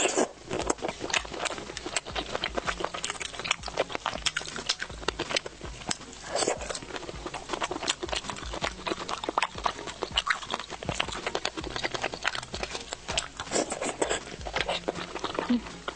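Close-miked eating sounds from wet chewing, lip smacking and slurping of food in chili oil: a dense, unbroken run of small wet clicks.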